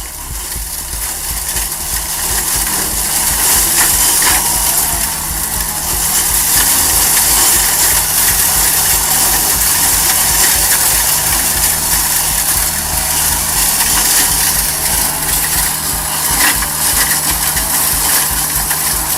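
Roadside hedge-trimming machine working, its motor giving a steady low hum under a dense high hiss from the spinning cutter head.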